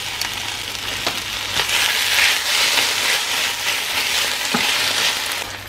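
Chopped peppers and shallot sizzling in a frying pan under cream cheese and tomato puree, with a wooden spoon stirring through them from about one and a half seconds in.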